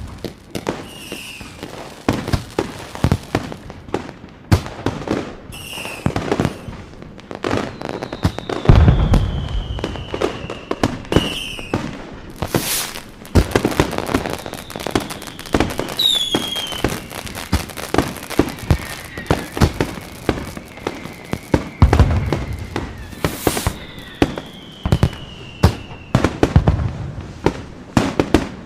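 Fireworks going off: a dense run of sharp bangs and crackling pops, with deep booms about 9, 22 and 27 seconds in. Several long whistles fall slowly in pitch over the bangs.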